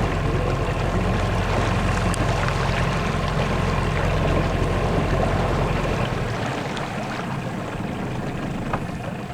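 Boat's outboard motor running under way, a steady low drone over the rush of water and wind. About six seconds in the engine drone drops away and the sound eases as the boat slows.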